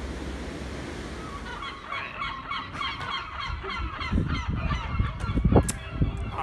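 Steady rush of sea surf, then from about a second and a half in, a flock of birds calling, many short overlapping calls, with a few low thumps near the end.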